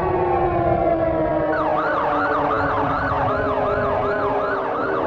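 Air raid siren mix played through small loudspeakers: a siren's tones slowly winding down in pitch. About a second and a half in, a fast wailing siren joins, sweeping up and down about three times a second.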